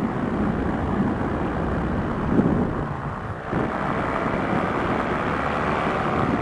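Paramotor engine and propeller running steadily in flight, mixed with wind rushing over the microphone. The engine is running smoothly on its freshly overhauled carburetor.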